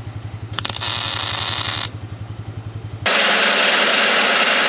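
A welding gun laying a short tack weld, a sizzling crackle lasting about a second, over a low pulsing engine-like hum. About three seconds in, this gives way abruptly to a small bench drill press boring into a steel flat bar, a loud steady hiss.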